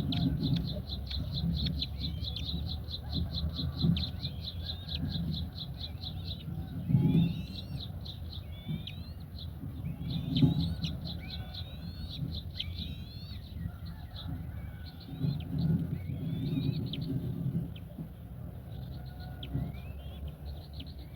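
Small birds calling: a fast, even trill of high chips for about the first six seconds, then scattered high chirps sliding up and down in pitch. Low muffled rumbles swell underneath every few seconds.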